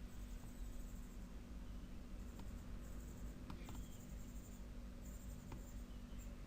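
Faint steady hum with a few soft, isolated clicks scattered through it.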